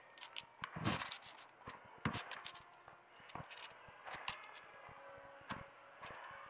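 Bread rolls being torn and crumbled by hand into a plastic bowl: faint, irregular crackles and rustles of crust and crumb.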